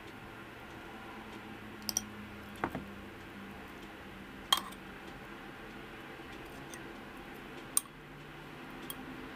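Metal spoon clinking against a glass jar and bowl as salad is spooned in: about half a dozen sharp clinks, the loudest about halfway through, over a faint steady hum.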